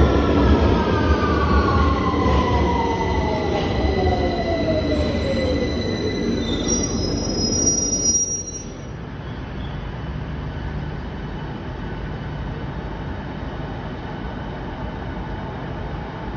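Victoria Line 2009 Stock Tube train slowing along the platform, its traction motor whine falling steadily in pitch as it brakes, with high wheel and brake squeal near the end. About eight seconds in the sound drops abruptly to a steady, quieter station hum.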